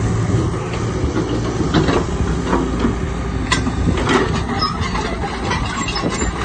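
Excavator running, its diesel engine a steady low rumble under scattered metal clanks and clicks.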